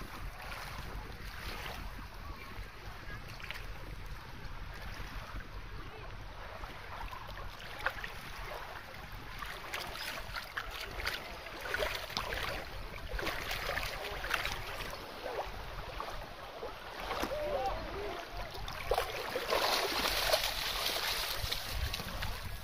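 Wind rumbling on the microphone over shallow lake water lapping. There are scattered splashes as a wet dog moves through the shallows, getting louder and brighter near the end as it wades out.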